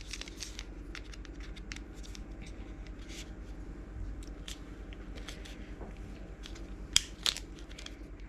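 Small plastic parts handled at close range: scattered light clicks and scrapes as a tiny leg is pressed against a miniature plastic piece without seating, with one sharper click about seven seconds in. A faint steady low hum lies underneath.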